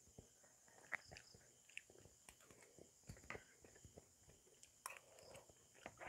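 Quiet, close-miked chewing and mouth sounds of a person eating steamed rice and sautéed eggplant, broken by short sharp clicks now and then.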